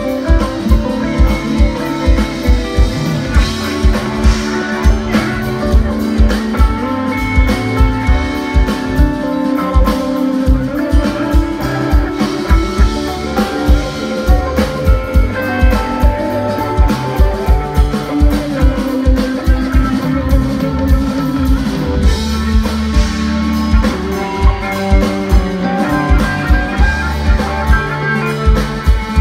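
Live funk jam band playing: electric guitars, bass and drum kit over a steady beat.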